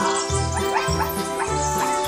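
Background music: sustained tones over a repeating bass beat.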